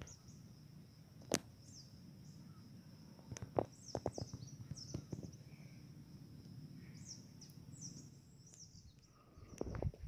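Faint pine-forest ambience: small birds chirping now and then over a steady high hum, with a few sharp clicks and a low rumble. Footsteps through forest undergrowth begin near the end.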